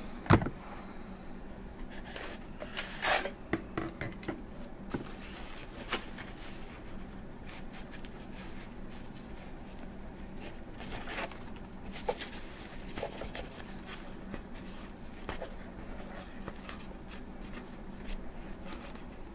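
Handling noise as a glass plasma tube is unwrapped from its white protective wrapping: short rustles and scrapes of the wrapping with scattered light clicks and taps. The loudest sound is a single sharp knock just after the start.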